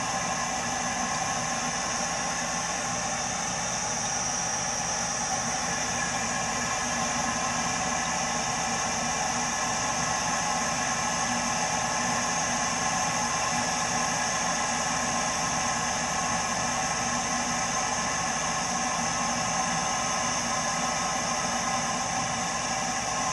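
Burnham Alpine ALP150W gas-fired boiler running, making a steady hissing noise with several steady tones through it and no change in level. It is the strange noise the owner says this three-year-old boiler often makes when running, cause unknown.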